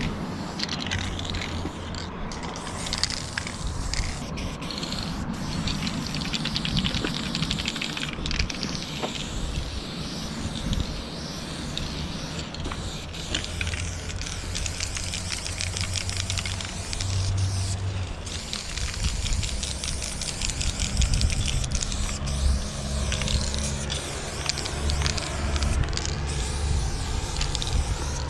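Aerosol spray-paint cans hissing in long spurts, with short breaks between strokes, as lines are painted onto a van's box body.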